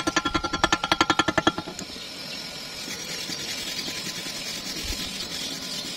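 Chipping hammer knocking slag off a fresh stick weld in quick, ringing metallic taps, about eight a second. About a second and a half in, the taps give way to a wire brush scrubbing the cleaned weld bead with a steady, high scratching hiss.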